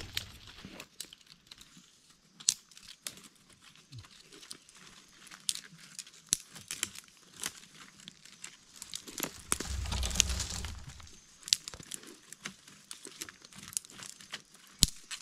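Dry leaves and twigs being crumpled, torn and snapped by hand to make a smoke bundle, giving scattered crackles and sharp snaps. A low rumble comes in for about a second near ten seconds in.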